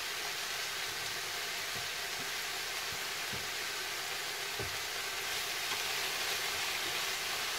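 Stir-fry vegetables sizzling in a hot frying pan: a steady frying hiss, with a few faint knocks.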